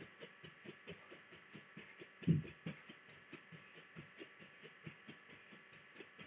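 Light, rhythmic footfalls on a floor, about four a second, from someone doing alternating scissor jumps, one foot forward and one back. There is one louder thump about two seconds in.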